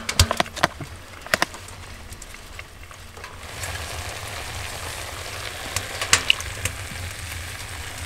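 Chicken with sliced peppers and onion frying in a cooking pot on a tent stove. A few sharp clicks come in the first second and a half, then a steady sizzle grows louder about three and a half seconds in.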